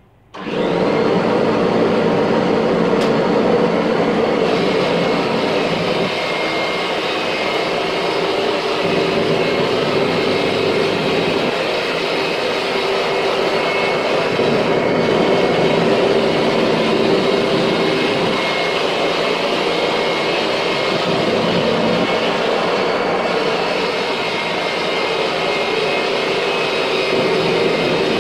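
Kirby Gsix upright vacuum cleaner switching on just after the start and running steadily, with a constant whine over the motor noise, while it is pushed in passes over a shag rug.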